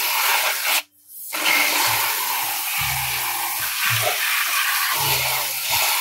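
Water hissing from a pistol-grip garden hose spray nozzle onto a plastic toy boat and the concrete around it. The spray cuts out briefly about a second in, then runs steadily again.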